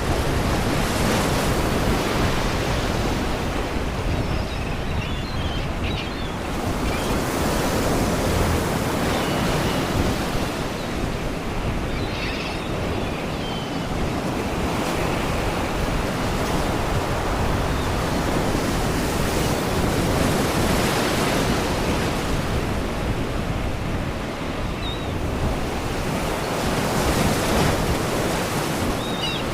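Sea waves breaking and washing against rocks, surging every four to six seconds. Faint seagull cries come through now and then.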